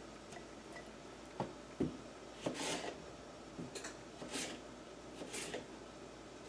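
Cucumber spears being pushed into a glass jar: two light knocks, then several short rubbing or scraping sounds about a second apart.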